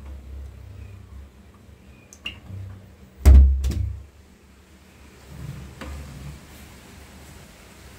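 A couple of small clicks, then two loud knocks about half a second apart as a kitchen window is unlatched and pushed open.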